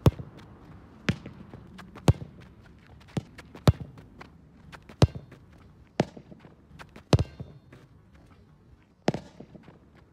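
A soccer ball being struck hard in no-spin knuckleball kicks, smacking against a concrete wall and bouncing on the pavement: a string of sharp thuds, about nine in all, with a kick landing right at the start.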